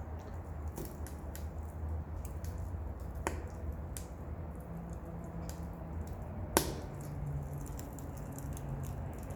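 Wood fire burning in a small wood stove, pallet and scrap box wood crackling with many small ticks over a steady low rumble. Two sharper pops stand out, one about three seconds in and a louder one a few seconds later.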